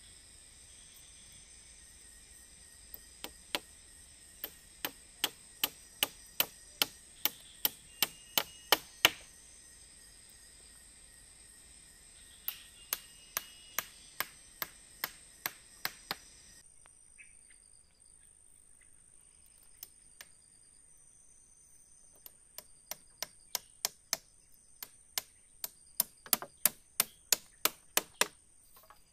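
Repeated sharp strikes of a tool on wood, in three runs of rapid knocks that each speed up and grow louder before stopping, as in chopping or pounding wood during shelter building. A steady drone of forest insects runs underneath.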